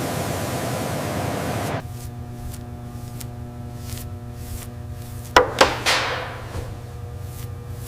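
A loud, steady spraying hiss that cuts off abruptly under two seconds in, followed by a low steady hum. About five and a half seconds in come three sharp knocks in quick succession, the last one ringing away.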